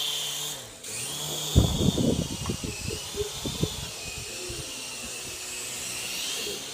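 Small toy RC helicopter's electric motor and rotors whining steadily, the pitch shifting a little, with a brief dip just under a second in. A cluster of loud knocks and rattles comes about a second and a half in and lasts about two seconds.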